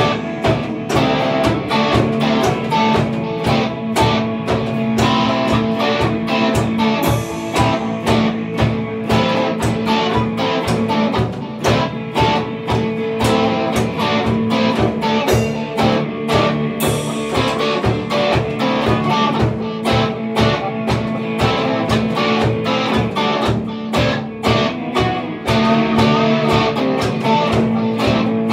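Instrumental rock played live by two electric guitars and a drum kit: the guitars hold ringing chords over a steady drum beat, with cymbal crashes now and then.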